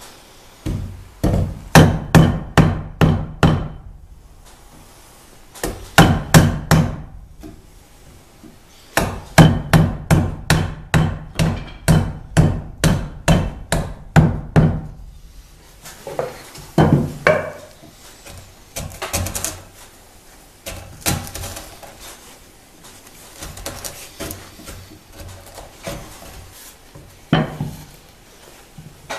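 A chisel being struck to chop out a mortise in a wooden beam: runs of sharp knocks about three a second, a long run in the middle, then lighter, scattered taps and scraping in the second half as the mortise is cleaned up.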